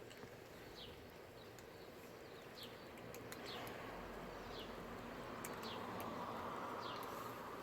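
Faint outdoor background with a short, high, falling chirp repeated about once a second, typical of a small bird calling. A broad rushing swell of noise builds in the second half and fades near the end.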